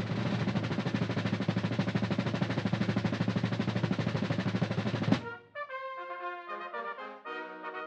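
Military ceremonial band: a drum roll, opened by a cymbal crash, runs for about five seconds and ends in another crash. Brass then plays a fanfare of short chords.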